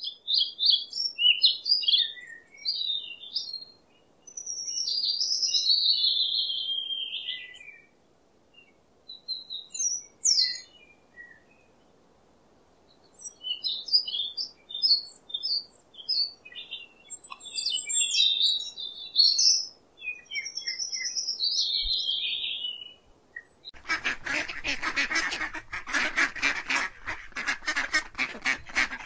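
Small birds chirping and singing in short high-pitched phrases with pauses between them, then near the end domestic geese break into loud, rapid honking and cackling.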